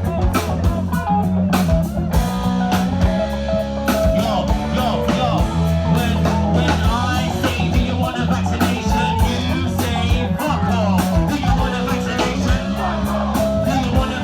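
A band playing a blues-rock passage, led by guitar over a steady bass line and regular drum beats, with some bending melodic or vocal lines and no clear lyrics.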